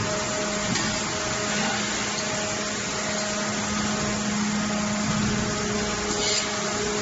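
Steady machine hum and hiss of an automatic stud welding line for cookware running, with a constant low electrical-sounding drone.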